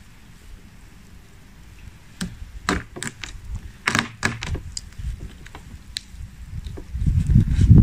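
Kitchen knife cutting raw chicken breast on a wooden cutting board: a string of irregular knocks and taps of the blade on the board, starting about two seconds in. Near the end, a louder low rumble comes in.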